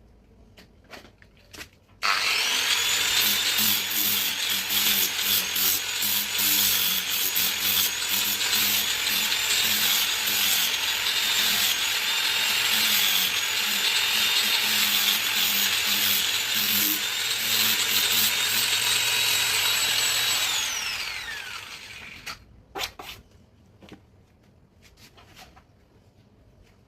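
Electric angle grinder fitted with a sanding disc starts about two seconds in and runs at a steady high whine while the disc grinds along the edge of high-pressure laminate (HPL). Near the end it switches off and winds down, its whine falling in pitch. A few light clicks and knocks come before and after.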